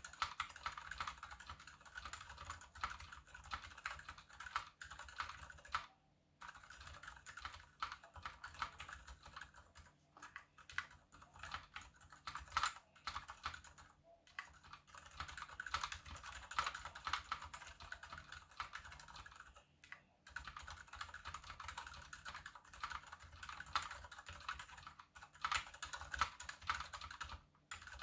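Typing on a KBD75 mechanical keyboard with unlubed Gateron Silent Brown switches, a brass plate and PBT DSA keycaps. A fast, steady run of keystrokes is broken by short pauses every few seconds.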